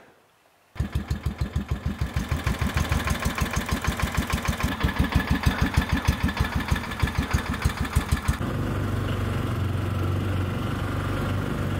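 Argo amphibious eight-wheel ATV engine running: a regular pulsing idle starting just under a second in, then a steadier, even engine sound from about eight seconds in as the machine drives.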